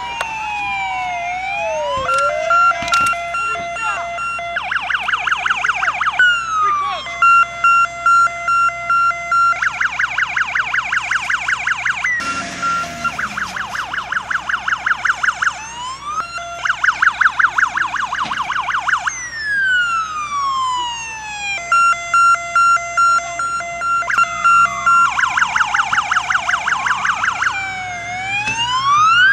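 Police car sirens cycling through a slow rising-and-falling wail, a fast yelp and a steady pulsing tone, with two sirens overlapping at times. A single sharp bang sounds about two seconds in.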